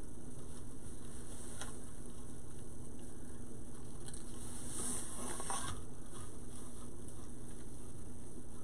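Deco mesh rustling and crinkling as a large mesh wreath is handled and turned over, loudest about five seconds in, over a low steady hum.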